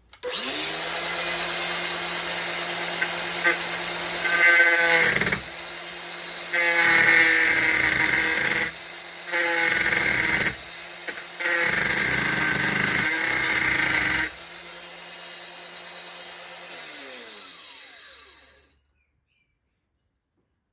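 Electric power tool motor running at high speed. Its pitch dips several times as it bears on the work, with short breaks. It is switched off about fourteen seconds in and its pitch falls as it winds down to a stop over several seconds.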